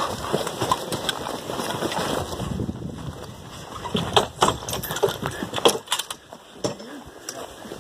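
A shooter's movement between firing positions: rustling steps and then a few sharp knocks and clatter of rifle and gear, the loudest about four to six seconds in, as he gets down prone on a wooden shooting platform.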